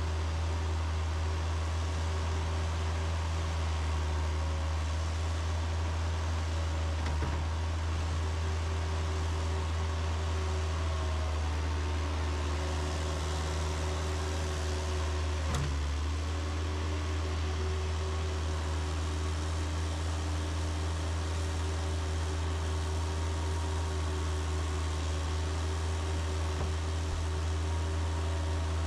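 Bobcat skid-steer loader's engine running at a steady pace while it works snow, with a single sharp knock about halfway through.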